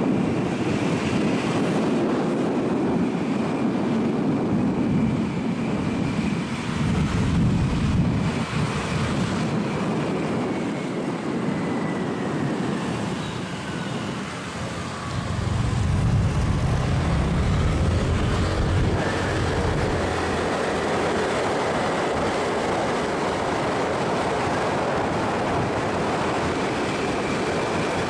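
Motor scooter being ridden along a street: engine running with road and wind noise, the engine rumble getting louder twice as it speeds up.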